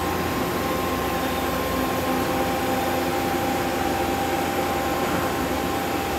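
Steady machinery hum with a few constant whining tones from the Hitachi Seiki HITEC-TURN 25G CNC turning center running as it loops through its program.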